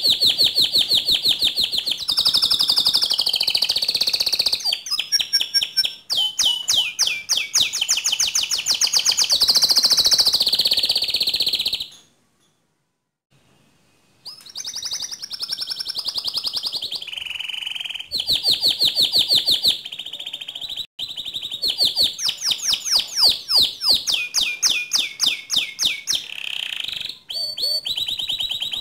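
White domestic canary singing in full voice, with long runs of rapid, high trills and rolls. The song breaks off for about two seconds near the middle, then resumes.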